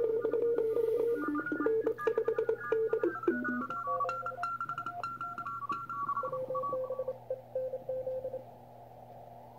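Morse code (CW) received on a Youkits HB-1B shortwave transceiver: several stations keying at once at different pitches, a 20-metre pileup. The keyed tones stop about eight and a half seconds in, leaving faint band hiss.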